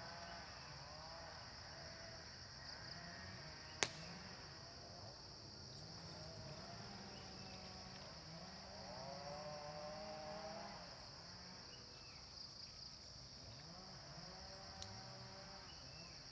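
Steady high-pitched insect drone, likely cicadas or crickets, with faint wavering pitched calls underneath and a single sharp click about four seconds in.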